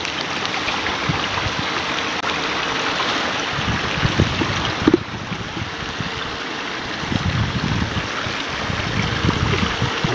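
Shallow stream running over rocks, with water sloshing around a person wading and sweeping poles through it, in surges about four seconds in and again from about seven seconds.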